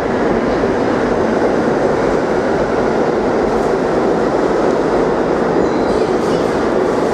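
New York City subway train running along the track through a station, a steady loud rumble of wheels on rail, with faint high wheel squeal coming in near the end.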